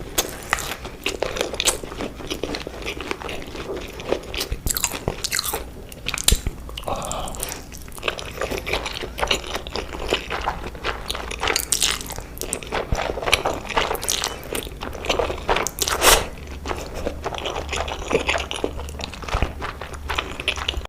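A person eating Korean instant noodles close to the microphone, with irregular crunchy bites and chewing throughout.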